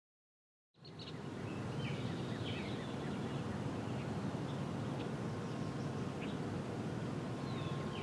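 Outdoor background noise, a steady low rumble, with a few short bird chirps scattered through it; it starts from silence about a second in.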